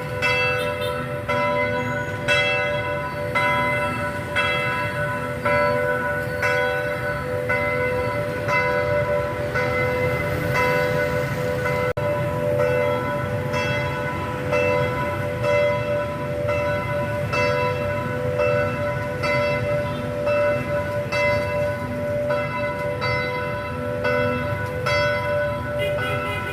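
Parish church bells ringing in a continuous peal, struck about twice a second, the strikes overlapping in a lingering ring of several steady tones.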